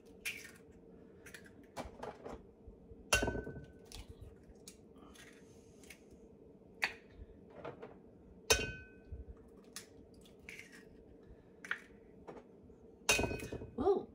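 Eggs being cracked one after another on the rim of a mixing bowl: three sharp knocks about five seconds apart, with lighter taps and clicks of shells in between. A faint steady hum runs underneath.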